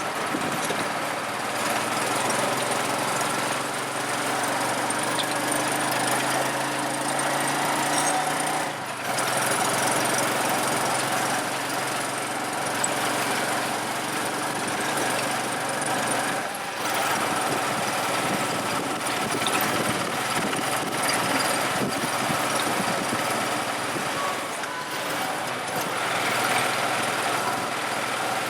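Motor vehicle engine running with road and traffic noise around it; the engine's pitch shifts and the sound dips briefly twice.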